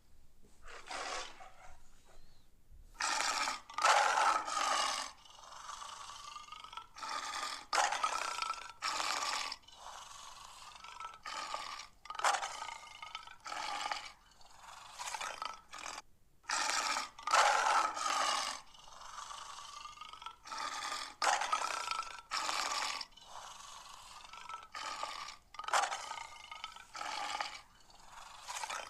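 Lion growls and roars in short repeated bursts of under a second to about a second each, with brief gaps between them.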